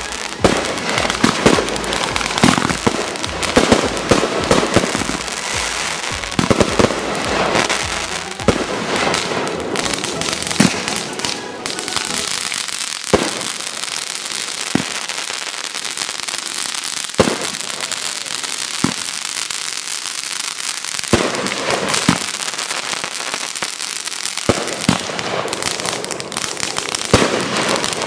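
Fireworks going off: a dense crackling barrage for the first dozen seconds, then separate sharp bangs every second or two, thickening again near the end.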